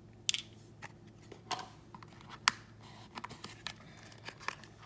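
Hands handling a small cardboard nail polish box and its cardboard presentation case: a string of light clicks, taps and scrapes. The sharpest clicks come about a third of a second in and about two and a half seconds in.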